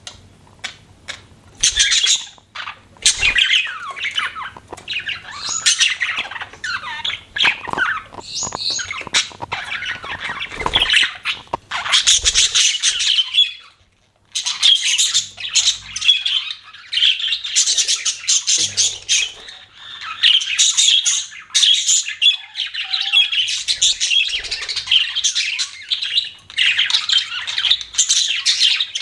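Pet budgerigars chattering and chirping in a rapid, continuous stream of warbles and squawks, with a brief pause about halfway through.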